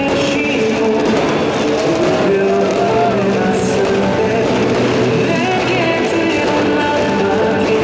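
Loud rock-style pop music with a singing voice, playing steadily.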